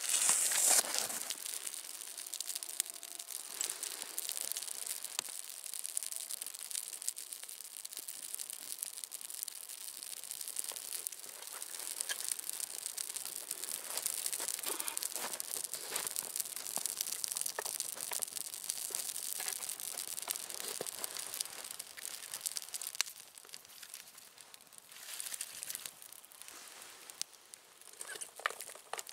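Small twig kindling fire crackling and hissing, with many fine snaps. A louder rustle about a second in, and the crackling quietens for a few seconds near the end.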